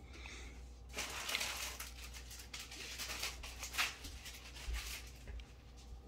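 Close rustling and scratching against curly dog fur and cloth: a dense run of scratchy strokes starting about a second in and easing off after about four seconds.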